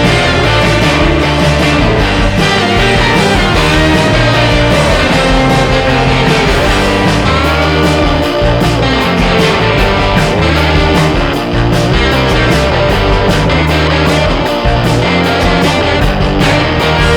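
Background rock music with a prominent electric guitar and a steady bass line.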